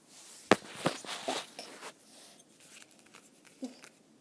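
Handling noise from Play-Doh and small plastic tools on a table: light rustling with a sharp tap about half a second in and another just before a second, then a few soft knocks.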